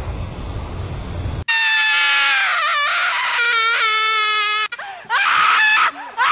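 A low rumbling drone that cuts off abruptly about a second and a half in, replaced by a loud, long human scream with wavering pitch, then two shorter screams near the end.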